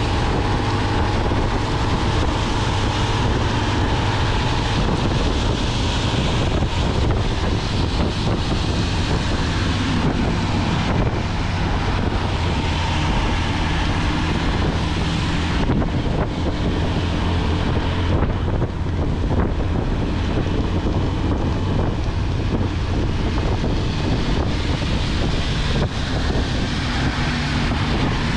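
Steady wind rush on the microphone over a Motolux MTX 125 motorcycle engine running at cruising speed, with tyre noise on a wet road.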